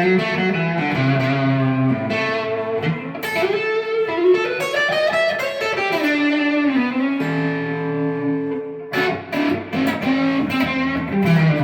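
Fender D'Aquisto electric guitar played lead through an overdrive pedal into solid-state amps with reverb: sustained single notes with string bends in the middle, then short choppy notes near the end.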